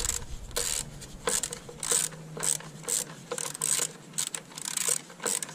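Ratchet wrench clicking in short repeated strokes, about two a second, as a bolt is worked loose.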